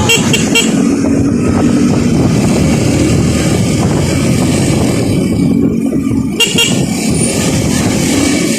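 A motorcycle running while riding in traffic, with wind rushing on the microphone and vehicle horns honking.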